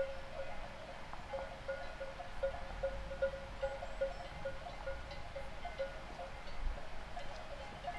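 Cowbells on pastured cattle clanking irregularly, a few strikes a second, with several bells ringing at different pitches.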